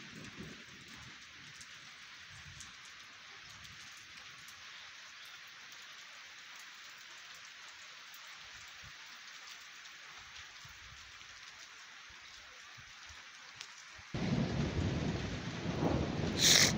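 Steady hiss of rain. About three-quarters of the way through, a much louder low rumble starts suddenly, with a sharp crack near the end.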